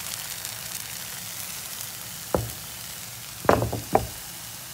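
Bánh xèo batter sizzling quietly in a hot, greased pan, with a sharp knock about two and a half seconds in and a quick cluster of knocks against the pan about a second later.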